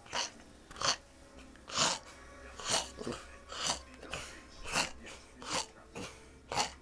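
A sleeping dog snoring: short, noisy snorting breaths about once a second, nine in a row.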